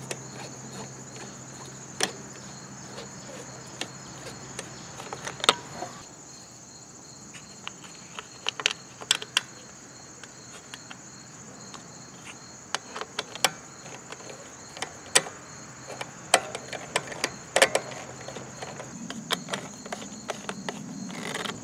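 Irregular clicks and knocks of hands handling the plastic air cleaner housing and its metal mounting screws on a Briggs & Stratton mower engine. Crickets chirp steadily and high-pitched underneath.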